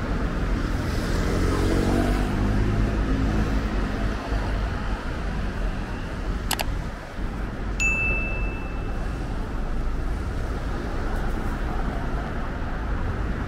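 City street ambience: a steady traffic rumble, with a vehicle passing in the first couple of seconds. About six and a half seconds in comes a single mouse-click sound effect, and a second later a short bell ding, both belonging to an on-screen subscribe-button animation.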